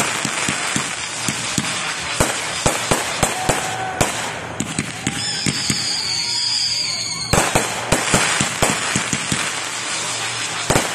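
Aerial fireworks going off in quick succession: sharp pops and bangs over a constant crackle. A high whistle sounds about halfway through, falling slightly in pitch, and a denser run of cracks follows.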